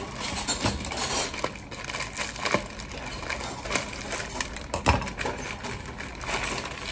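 Plastic wrapper of an instant-noodle multipack crinkling and rustling as it is handled, cut with scissors and torn open. There are irregular clicks throughout and one sharp, loud snap nearly five seconds in.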